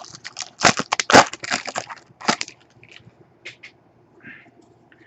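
Wrapper of a trading card pack crinkling and crackling as it is torn open. The crackle is dense for the first two and a half seconds, then thins to a few scattered crackles.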